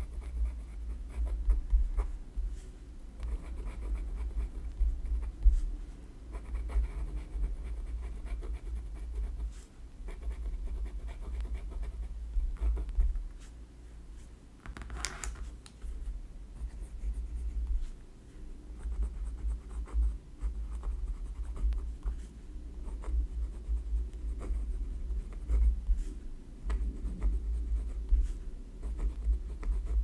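Pen writing on paper in a spiral-bound grid notebook: steady scratching strokes with the soft tap of the pen on the pad, in runs broken by short pauses. About halfway through there is one brief, sharper scrape.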